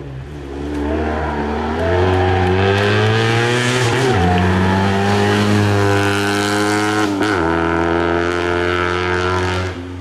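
Steyr Puch 650T rally car's small air-cooled flat-twin engine at full throttle as it accelerates past, climbing in pitch and shifting up twice, about four and seven seconds in, before it fades away.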